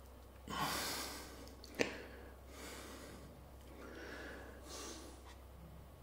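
Heavy breathing of a man straining to hold flexing poses: a long forceful exhale about half a second in, a sharp click just after it, then three softer breaths.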